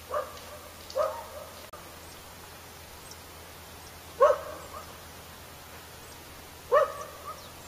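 A dog barking four times, two barks close together at the start and two more a few seconds apart.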